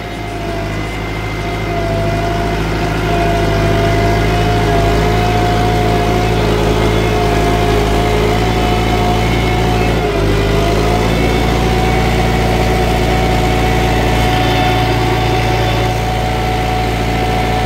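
Kubota tractor's diesel engine running steadily. It grows louder over the first few seconds, then dips briefly and changes pitch about ten seconds in.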